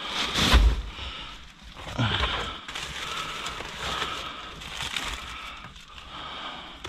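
Packaged food being handled and moved about in a dumpster: plastic packaging rustling and items knocking, with a heavy thump about half a second in and another knock around two seconds in.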